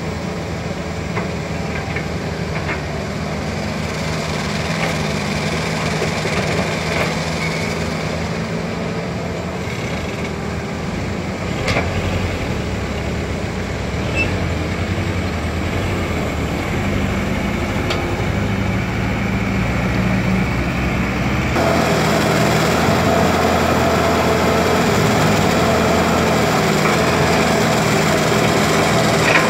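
Heavy diesel excavator engine running steadily under work, with a few sharp metallic clanks. About three-quarters of the way through, the sound changes suddenly to a louder, higher-pitched engine note.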